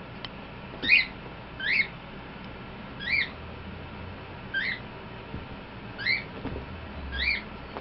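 Six short, high-pitched chirps from an unseen small animal, repeating irregularly about a second apart over a faint low hum.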